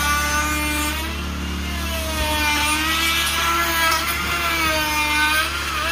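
Cordless die grinder with a small carving bit running at high speed against wood. Its whine sags in pitch as the bit bites in and rises again as it frees up.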